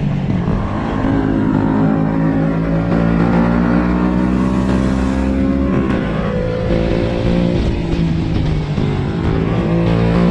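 125 cc single-cylinder motorcycle engine running under way. Its pitch dips and climbs again a couple of times.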